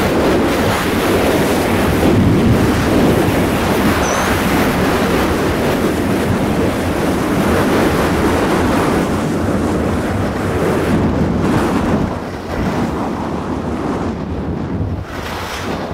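Wind rushing hard over the microphone of a skier's camera during a fast downhill run, mixed with the hiss of skis sliding on packed snow. The rushing eases about twelve seconds in as the skier slows.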